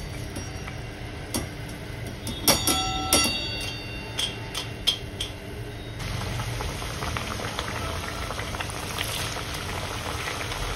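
A few metallic clinks of a wire-mesh skimmer against a steel frying pan as a fried chakli is lifted from the oil. Then, from about six seconds in, the steady sizzle and crackle of fresh chakli dough frying in hot oil, bubbling hard just after going in.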